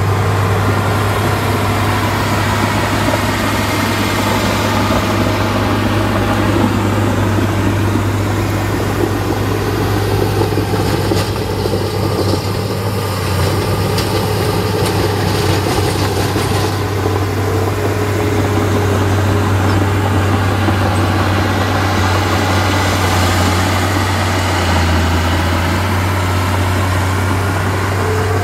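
Heavy diesel engines of earthmoving machines running steadily: a low, constant drone whose pitch rises and falls a little as they work, with a few faint clicks midway.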